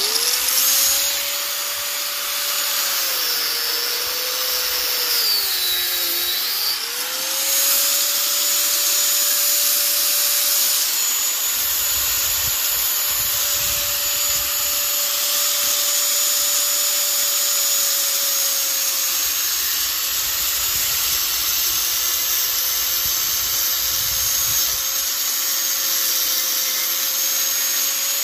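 Electric angle grinder starting abruptly and running with a steady whine, its pitch dipping briefly about five to six seconds in as the disc is loaded while cutting into an air-conditioner radiator coil.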